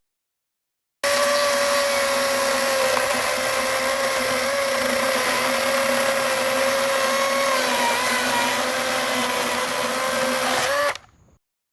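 Greenworks 40-volt brushless cordless chainsaw running at steady full speed, a constant electric-motor whine with chain hiss; it starts abruptly about a second in and stops shortly before the end.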